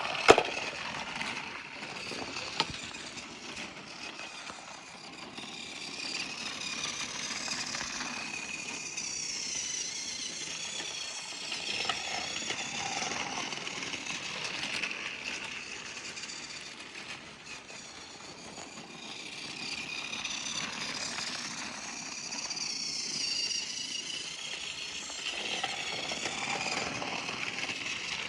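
Battery-powered Trackmaster James toy engine running along plastic track: a small electric motor and gearbox whirring, its pitch wavering up and down as it goes. Two sharp clicks in the first few seconds.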